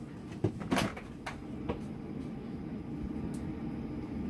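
Four light knocks and taps in the first two seconds, a thrown small cat toy ball landing and bouncing, then a low steady hum.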